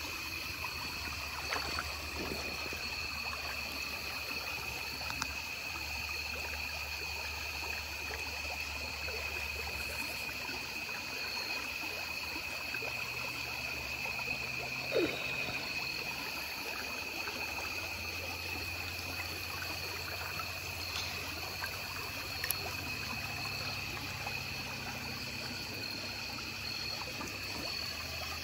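Shallow, pebbly stream water trickling steadily, with a steady high-pitched drone over it and one short splash or knock about halfway through.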